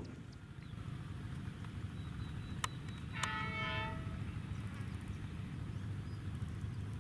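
Low rumble of a train on the line, with a short single horn blast a little over three seconds in, just after a sharp click.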